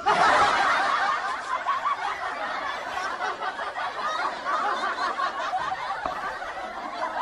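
Seawater splashing and gurgling against a camera held at the water's surface, a dense, steady churning that starts and stops abruptly.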